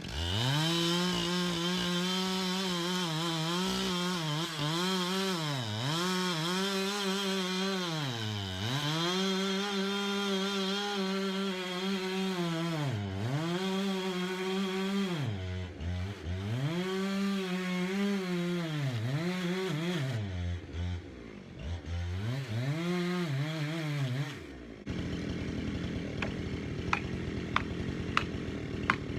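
Husqvarna 372 single-cylinder two-stroke chainsaw with a 32-inch bar running at high revs in a cut, its pitch dropping and climbing back every couple of seconds as the throttle is eased and reopened. It shuts off suddenly about 25 seconds in, leaving a steady noise with a few faint sharp clicks.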